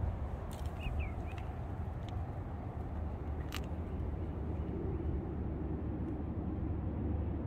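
Steady low outdoor rumble, with a few short high chirps early in the second second and one sharp click about three and a half seconds in.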